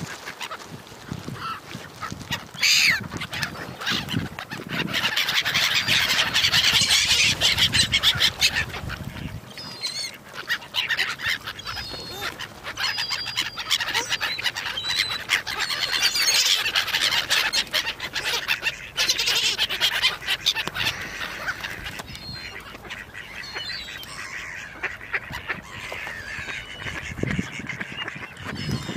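A large flock of ducks and other waterbirds calling over one another without pause as they squabble for thrown food. It is loudest from about five to nine seconds in.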